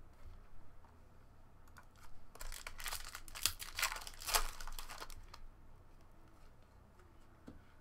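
Foil trading-card pack wrapper being torn open and crinkled by hand: a run of sharp crackling and tearing starting about two seconds in and lasting nearly three seconds, with light clicks of handling before it.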